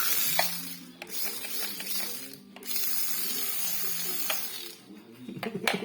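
Toy RC car's small electric motor and gears whirring in three runs of about one to two seconds each, with short pauses between them and a few sharp clicks near the end.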